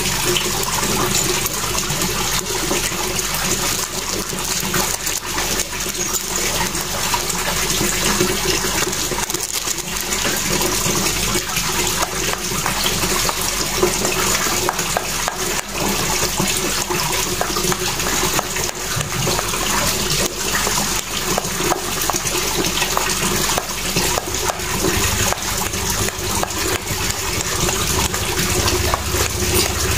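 Steady rushing of running water, with the scrape and clack of a plastic spoon stirring stiff dough in a stainless steel bowl.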